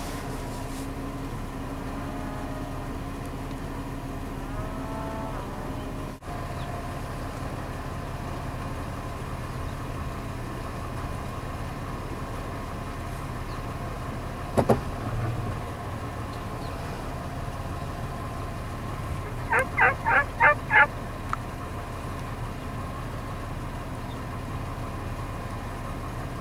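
Wild turkey hen yelping: a quick run of about six yelps, some 20 seconds in, over a steady low hum. A single sharp knock comes about halfway through.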